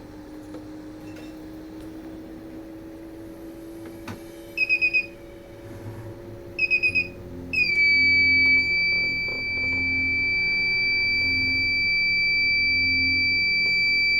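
Kent RO water purifier's buzzer giving two short bursts of rapid high beeps, then a continuous beep that does not stop: the purifier's beeping fault. A low hum starts under the beep.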